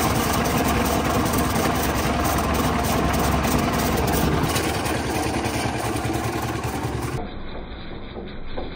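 Drum concrete mixer running, a steady engine drone. About seven seconds in the sound drops to a quieter, duller churn as heard from inside the turning drum full of wet concrete.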